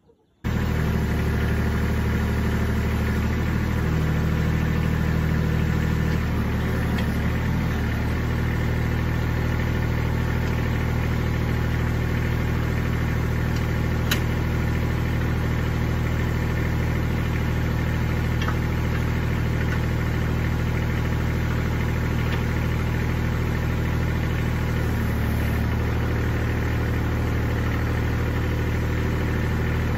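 Kubota compact tractor's diesel engine running steadily at idle. Its note shifts a few times, most clearly about 25 seconds in as the backhoe boom is worked on the hydraulics. There is a single sharp click about halfway through.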